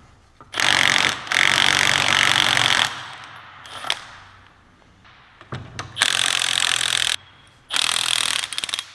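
Impact wrench run in three bursts, a long one and then two shorter ones near the end, each starting and stopping sharply: fasteners being spun off during teardown of a Salisbury rear differential.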